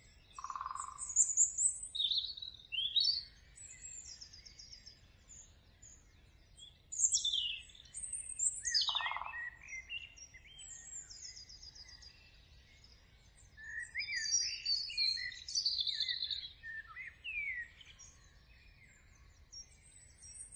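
Songbirds chirping and trilling: short high calls, quick rising and falling sweeps and rapid trills that come and go, overlapping at times, with a short lower note twice, about half a second in and about nine seconds in.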